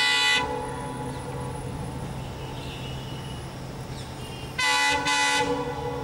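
EMD WDP-4 diesel locomotive sounding its air horn: a long blast cuts off about half a second in, then two short blasts in quick succession near the end, with the locomotive's two-stroke diesel engine running steadily underneath as it approaches.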